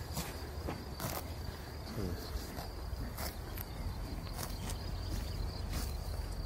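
Horses grazing, tearing and cropping grass in short crisp rips about once a second, over a steady high chirring of crickets.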